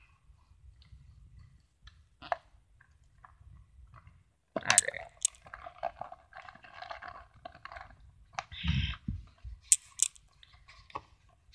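Plastic blister packaging of a boxed toy figure crinkling and crackling as it is handled and cut open with scissors, with scattered sharp clicks and a dull thump about nine seconds in.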